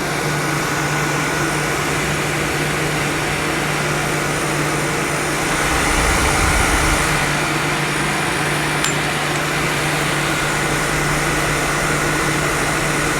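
1973 Gibson 8000 BTU window air conditioner running with its compressor on and cooling: a steady rush of air from the fans over a constant low hum. A louder low rumble swells briefly about six seconds in.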